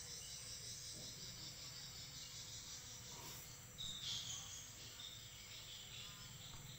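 Faint steady background noise, a hiss with a low hum under it, with a brief slightly louder patch about four seconds in.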